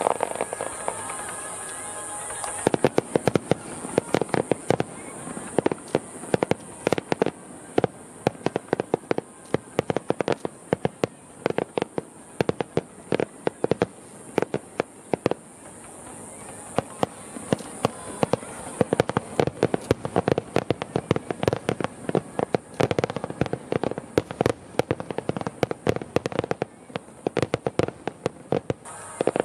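Aerial firework shells bursting in a rapid, dense barrage: many sharp overlapping bangs and crackles that start about three seconds in and keep going almost without a break until near the end.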